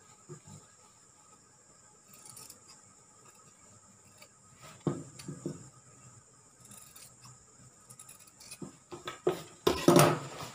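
Tailor's scissors snipping cloth in a few short cuts, with fabric rustling and handling between them, while excess cloth is trimmed from a sewn armhole binding. Near the end comes a louder cluster of sharp handling sounds.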